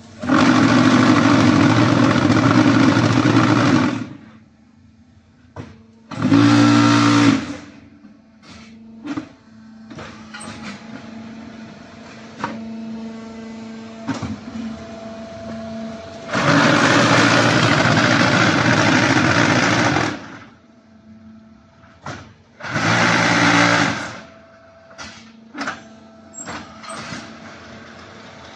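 QT4-18 automatic concrete hollow block machine running through two production cycles. Each cycle starts with about three and a half seconds of loud mould vibration as the concrete is compacted, then a shorter burst of about a second a few seconds later. Knocks and clanks of the hydraulic press and pallet come in between, over the steady hum of the hydraulic unit.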